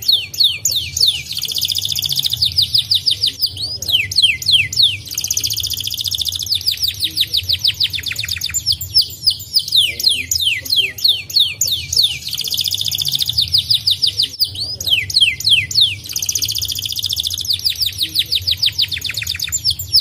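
Domestic canary singing: phrases of quick downward-sweeping notes alternating with fast buzzy rolled trills, broken by short pauses and repeating every few seconds. A steady low hum runs underneath.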